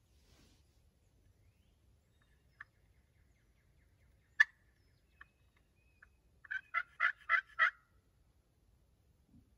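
Turkey calls: a few short, sharp single notes, the loudest about four and a half seconds in. Then near the end comes a run of six quick calls, about four a second.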